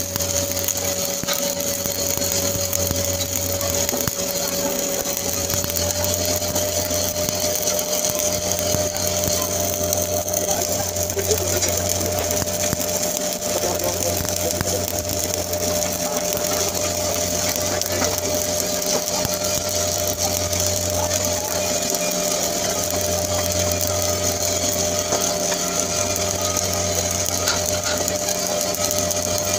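Stick (SMAW) welding arc crackling and hissing steadily as an electrode lays the capping pass on a 10-inch carbon steel pipe. Underneath is a steady machine hum, with a low drone that cuts in and out every couple of seconds.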